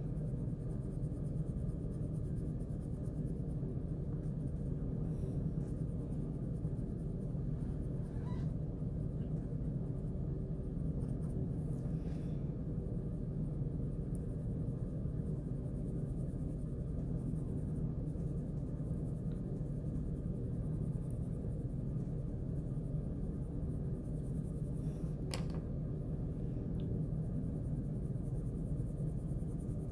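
Red wax crayon scratching back and forth on paper as it shades a colour gradient, over a steady low hum. A single sharp click sounds near the end.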